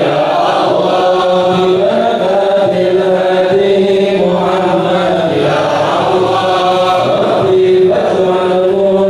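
A congregation chanting a devotional prayer together in unison, in long held lines that move slowly from note to note.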